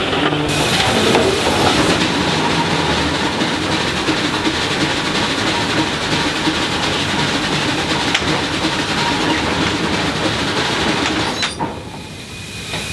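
Hoisting machinery of a circa-1910 Marion-Osgood Model 73 steam shovel, its gears, drums and friction clutch turning with a steady mechanical clatter. Near the end the noise drops away sharply as the machinery slows.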